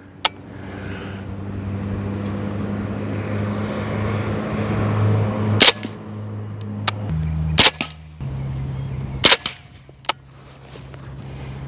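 Suppressed 9mm MP5-type carbine firing subsonic 147-grain rounds: three sharp shots about two seconds apart in the second half, with fainter clicks near the start and end. A low drone runs underneath and steps down in pitch twice.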